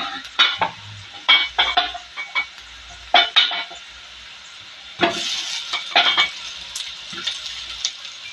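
Spatula knocking and scraping in a kadhai of onion tempering frying in oil, a few sharp clacks over a light sizzle. About five seconds in, pieces of alu vadi go into the hot oil and the sizzle turns louder as they are tossed.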